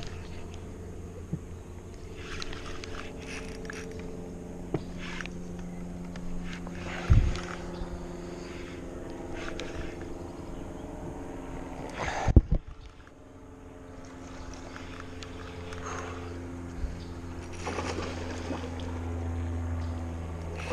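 An engine drones steadily, its pitch slowly drifting, with two sharp knocks: one about seven seconds in and a louder one about twelve seconds in.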